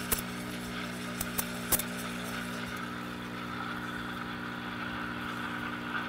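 ECM Mechanika V Slim heat-exchanger espresso machine at work: its vibration pump hums steadily as a shot pulls, under the steady hiss of the steam wand frothing milk in a small stainless pitcher.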